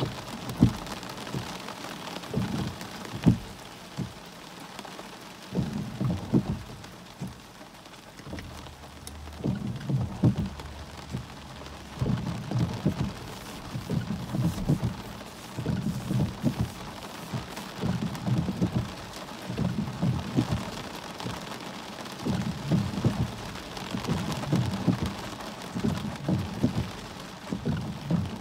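Heavy wind-driven thunderstorm rain pouring steadily, with frequent irregular low thumps and gusts.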